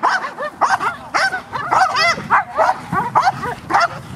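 Belgian Malinois barking rapidly and without a break, about three to four short, high-pitched barks a second.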